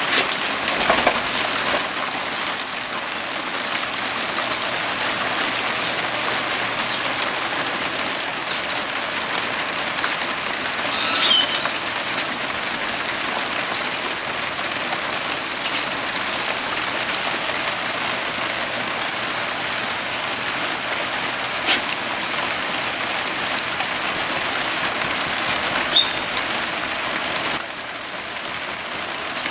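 Steady light rain, an even hiss with a few sharp single taps, a little quieter near the end.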